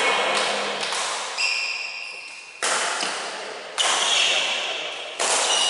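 Badminton rally: a racket strikes the shuttlecock four times, each a sharp hit that echoes and fades, with shoes squeaking on the court floor between the hits.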